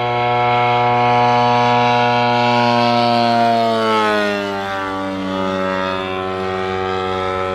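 Desert Aircraft DA-150 two-cylinder two-stroke gas engine of a giant-scale RC biplane running at high power in a low pass. Its pitch drops smoothly about three to five seconds in as the plane goes by and heads away.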